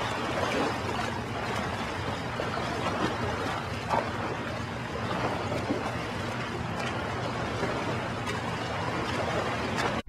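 Steady rush of surf washing on a beach, with a brief faint blip about four seconds in.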